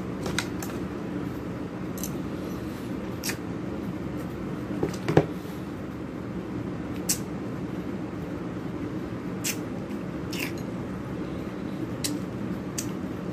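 Eating sounds: a metal spoon scraping and clicking against an aluminium foil food tray as food is scooped up, with chewing and mouth sounds, over a steady low hum. The loudest knock comes about five seconds in.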